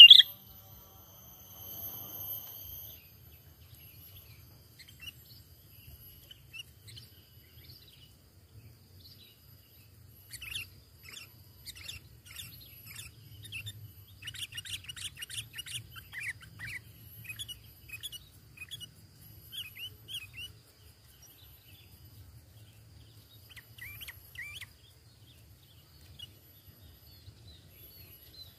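Sooty-headed bulbuls (kutilang) calling in scattered short chirps and whistled notes, with a dense run of chatter about halfway through. A brief loud note sounds right at the start, and a faint low hum runs underneath.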